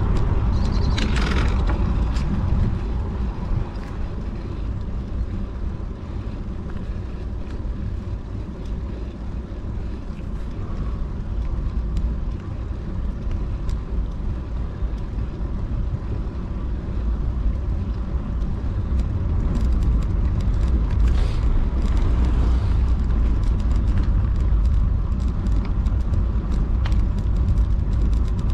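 Wind buffeting the microphone of a bike-mounted action camera, with road noise from the bicycle riding. It is a steady low rumble that grows louder about two-thirds of the way through, with a couple of brief hissing swells.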